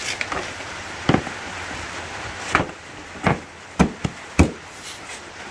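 Yamaha XT250 seat being pushed and knocked down onto its mounts: about six dull thumps spread over a few seconds, the loudest near the end, as it seats into place.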